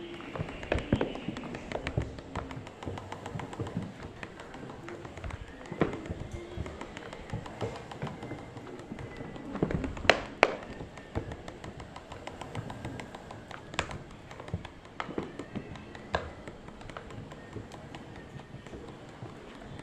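Surfskate rolling over pavement, with irregular ticking and clicking from the board throughout and a few sharper, louder clicks.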